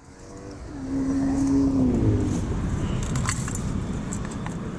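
A car driving by close at hand, its engine note falling as it goes, with a steady road rumble after it and a few light clicks about three seconds in.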